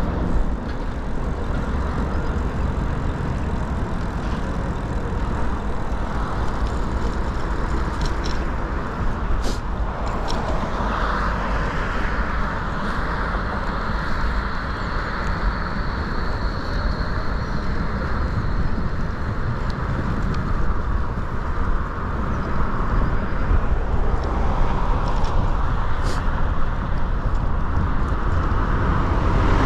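Steady rushing noise of wind on a GoPro 10's microphone while riding a bicycle, with the rolling bike underneath it. A few sharp clicks come through, and a faint high whine holds for several seconds in the middle.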